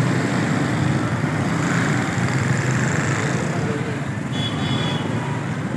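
Busy street ambience: a steady mix of motor traffic and the voices of a crowd, with a brief high tone a little after four seconds in.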